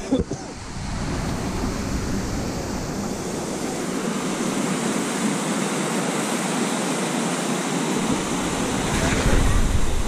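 A small stream running over rocks: a steady rushing of water. Near the end a louder low rumble comes in as the camera is handled.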